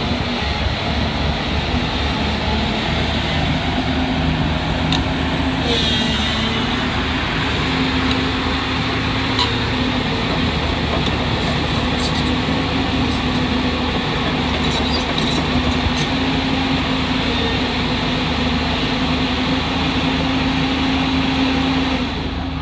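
JCB JS205 excavator's diesel engine running steadily, with a few short clicks or knocks along the way.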